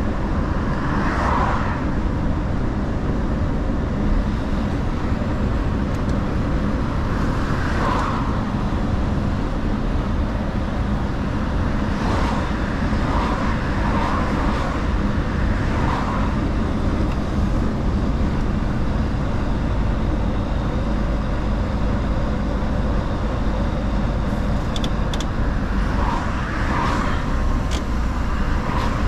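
Mercedes-Benz Actros L truck on the move: a steady diesel engine hum and road rumble, with a few brief swells of extra noise now and then.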